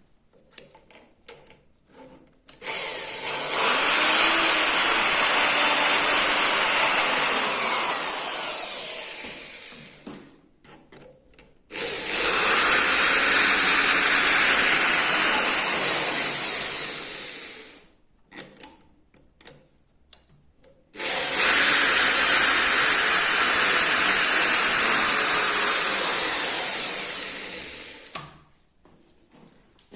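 Handheld electric power tool grinding a chainsaw chain's teeth, run three times for about six to seven seconds each: each run spins up to a high whine and winds down slowly. Light clicks and taps between the runs.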